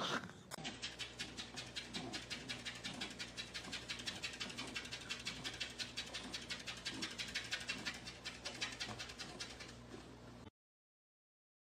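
A cat: a short loud sound right at the start, then a steady run of quick soft clicks, about four a second, with faint low cries underneath. It cuts off suddenly about a second before the end.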